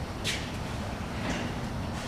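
Steady low mechanical hum of workshop background noise, with two brief high hisses about a quarter second and a second and a quarter in.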